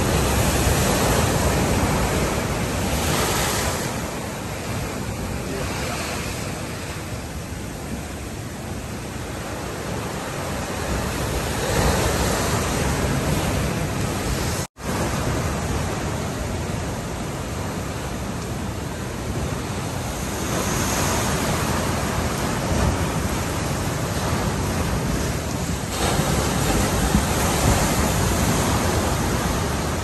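Large king-tide waves surging and breaking against a concrete seawall, a continuous rushing wash that swells as each wave crashes, with wind buffeting the microphone. The sound drops out for an instant about halfway through.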